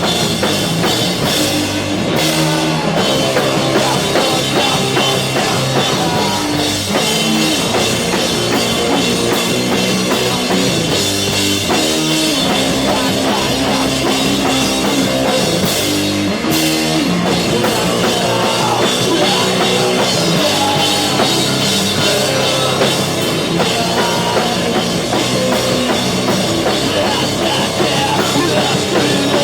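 A live rock band playing loud, continuous music on drum kit and guitars.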